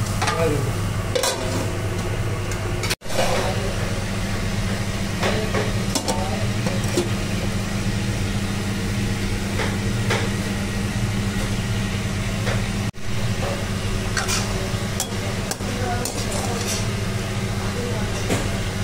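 Perforated metal spatula scraping and stirring moringa leaves stir-frying in a metal pan, in short irregular strokes, over a steady low hum.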